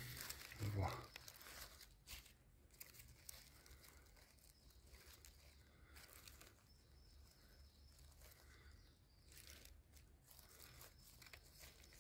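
Faint rustling and crackling of dry leaf litter, with scattered light snaps, at a level close to silence. There is a brief louder sound about a second in.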